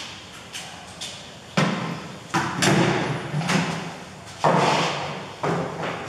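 A series of irregular knocks and clunks as tools and parts are handled and set down at a workbench and tool trolley, about seven in all, the loudest about a second and a half and four and a half seconds in.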